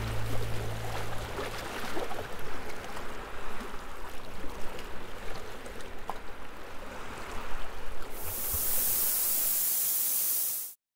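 Sea surf washing onto a sandy beach, a rough, uneven rushing noise, with the last notes of the song dying away in the first two seconds. From about eight seconds in, a brighter steady hiss takes over until the sound cuts off suddenly near the end.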